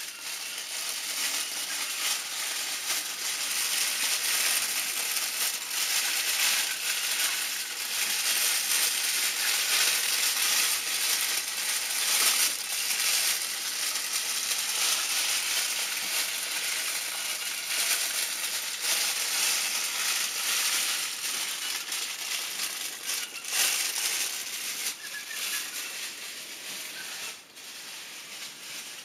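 Experimental noise music: a dense crackling, crunching hiss full of small clicks, easing off near the end.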